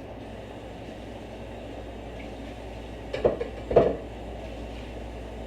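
Two clanks of kitchen dishes or utensils, about half a second apart, over a steady low background hum.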